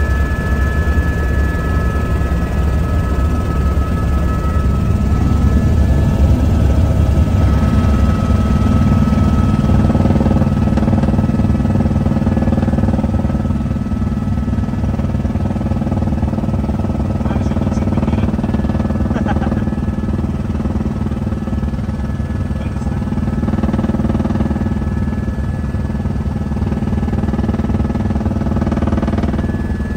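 Helicopter turbine and rotor noise heard from inside the cabin: a steady deep drone with a thin high whine. Music comes in over it about eight seconds in.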